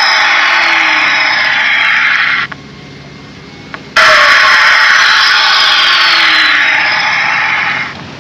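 Electronic turbo blow-off ('whoosh pipe') sound simulator played through two chrome exhaust-tip speakers, set to a treble-heavy tone. A loud hissing whoosh with a falling whistle cuts off abruptly about two and a half seconds in. After a faint click, a second whoosh starts about four seconds in and stops near the end.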